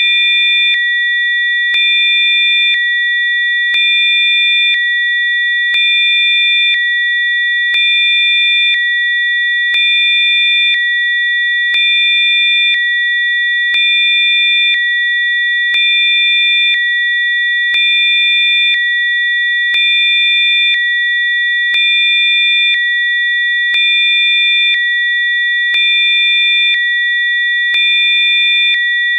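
Electronically generated Rife-frequency tones: several steady, high-pitched sine tones sounding together. They swell and ease slightly about once every two seconds, with a faint click at each change.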